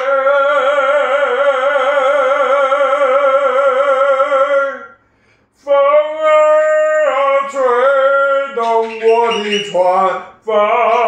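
A man singing solo, with no accompaniment, holding one long note with vibrato until about five seconds in. After a short breath he moves through a series of shorter notes.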